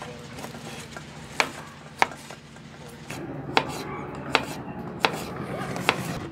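Kitchen knife cutting garlic cloves on a cutting board: six sharp knocks of the blade on the board at uneven intervals, over a steady low hum.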